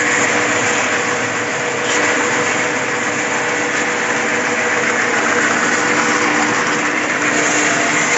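Waste radiator cutting and separating machine running steadily, a loud even mechanical noise with a faint steady hum.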